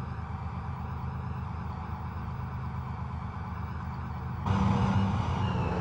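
M113 C&V tracked reconnaissance vehicle's engine running with a steady low hum. About four and a half seconds in, the sound suddenly gets louder and a thin high whine joins it.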